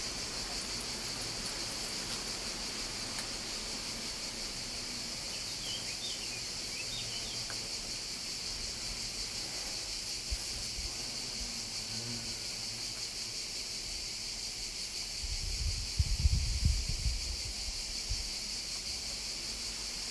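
Steady high-pitched drone of insects in summer heat, with a few short chirps about six seconds in. A burst of low rumble about sixteen seconds in is the loudest sound.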